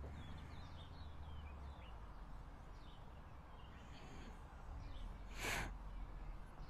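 Faint outdoor ambience with scattered small bird chirps, short sliding calls, over a low steady hum. A brief burst of hiss about five and a half seconds in is the loudest sound.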